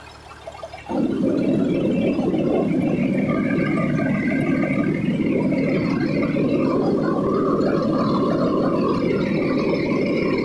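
A fire engine running close to its front grille: a loud, steady mechanical noise that comes on suddenly about a second in and holds.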